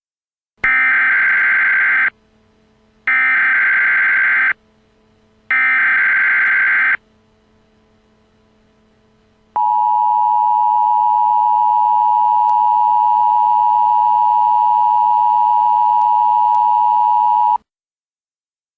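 Emergency Alert System alert start: three bursts of the screeching SAME digital header, each about a second and a half, followed a couple of seconds later by the steady two-tone attention signal, held for about eight seconds. It marks the start of a new alert, here the blizzard warning that follows.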